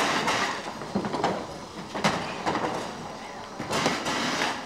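Commotion from a crowded room: voices in the background and three loud rushing bursts of noise, near the start, about two seconds in and near the end.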